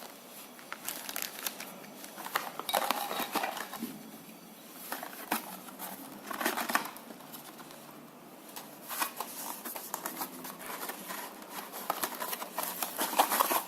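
Packaging crinkling and rustling in irregular bursts, with scattered light clicks and taps, as the accessories of a USB hub are unpacked by hand.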